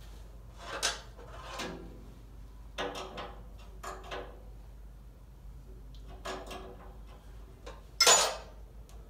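Short knocks, scrapes and rustles of hands working at the controls of a vintage Farmall tractor whose engine is stopped, with a louder knock near the end.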